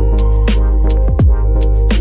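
Background music with a steady beat, deep bass and falling bass-drum hits.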